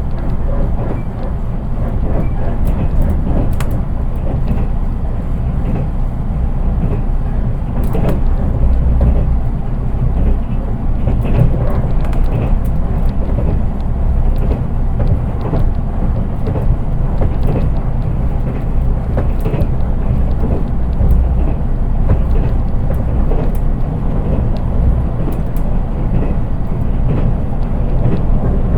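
Running noise inside an unpowered KuHa 183 control car of a JR East 183 series electric train: a steady low rumble of wheels on rail with scattered light clicks.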